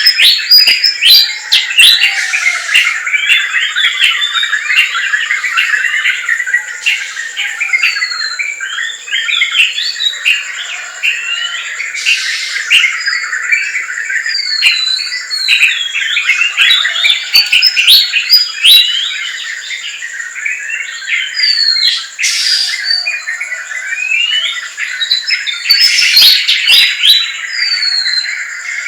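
A dense chorus of many forest birds chirping and calling at once: quick overlapping short notes and sliding whistles, over a steady high-pitched tone.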